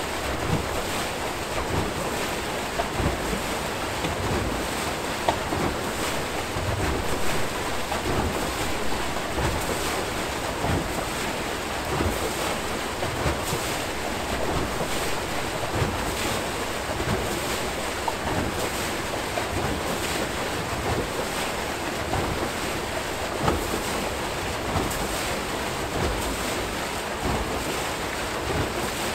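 Water churning and splashing steadily as it spills out of the turning flights of an Archimedes screw hydro turbine into the river below.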